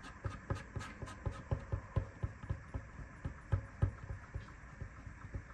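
Small ink pad dabbed repeatedly onto a rubber cling stamp to ink it: a steady run of soft taps, about four a second.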